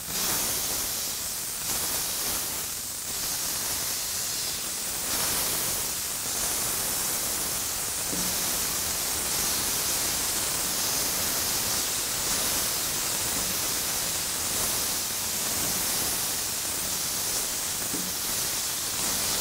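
Smashed 80/20 ground beef patty sizzling steadily on a hot flat-top griddle as it is pressed and smeared thin with a steel spatula.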